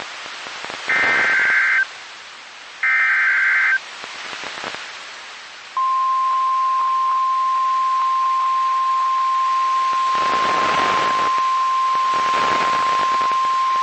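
NOAA Weather Radio emergency alert: two harsh, warbling data bursts of the SAME header, about a second each, then after a short pause the steady single-pitch warning alarm tone starting about six seconds in, all over radio static. The tone signals a severe thunderstorm warning about to be read.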